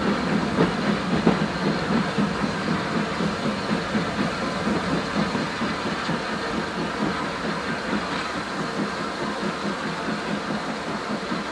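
A steam-hauled passenger train's coaches rumbling and clattering along the track, fading slowly as the train draws away.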